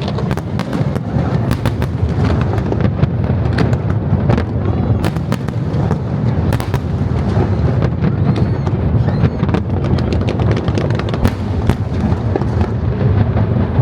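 Aerial fireworks display going off without a break: a dense, continuous low rumble of bursts with many sharp crackles and bangs layered over it.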